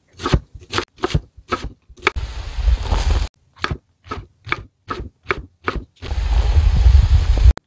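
Kitchen knife chopping onion, then mushrooms, on a bamboo cutting board: sharp knocks of the blade on the wood, the mushrooms in a quick even run of about four strikes a second. Twice the chopping gives way to a steady, loud rushing noise lasting a second or more.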